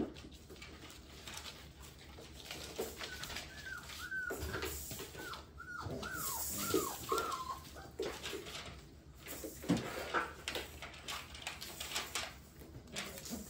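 Bullmastiff puppies at play: a quick run of about ten short yelps, each falling in pitch, a few seconds in, over the scuffling and clicking of paws and claws on a hard floor, with a louder thump about two-thirds of the way in.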